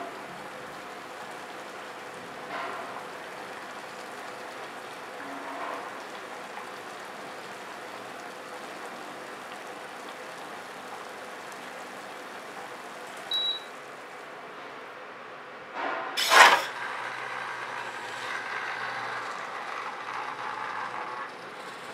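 A pot of water simmers with a steady hiss on an induction cooker. About halfway there is a short high beep. Later comes a sudden loud noise, then about five seconds of whirring from a small robotic cooking arm's servo motors as the arm swings upright.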